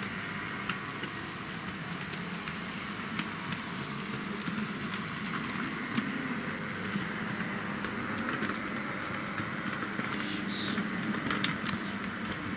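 H0-scale model tram running on layout track: the steady whirr of its small motor and wheels, with a few scattered clicks.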